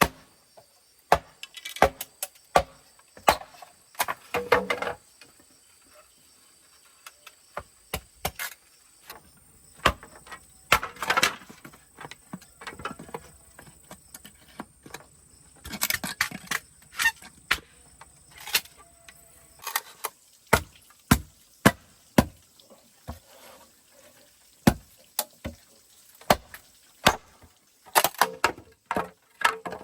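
A series of sharp, irregular knocks and clacks, like hard objects or tools striking wood or metal, with a few short scraping or rustling stretches between them.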